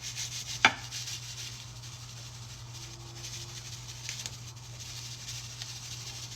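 Kitchen handling noises: one sharp knock about two-thirds of a second in, then faint light clicks and rubbing, over a steady low hum.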